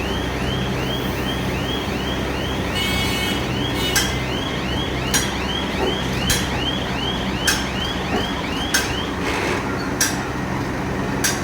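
Metal hammer blows landing about every second and a bit, starting about four seconds in, during blowing pipe fitting at a blast furnace tuyere. Under them run a repeating warbling electronic warning tone, about three chirps a second, and a steady industrial drone.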